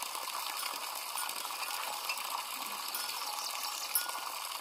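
Steady trickle of running water with small clinking ticks.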